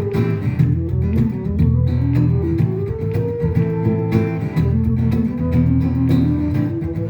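Guitar music: a plucked melody moving over a steady low bass line.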